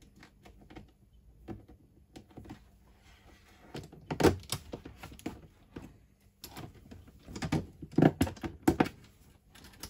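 A clear plastic storage box and a small cooling fan being handled and fitted together: a run of clicks, knocks and rattles from the thin plastic, loudest about four seconds in and again around eight seconds.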